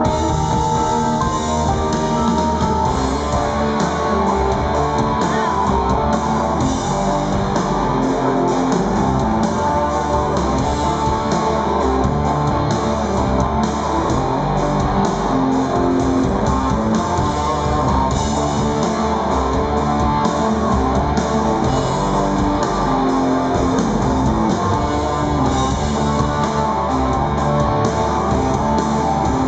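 Live rock band playing an instrumental passage, loud and steady: electric guitar over bass, keyboards and drums.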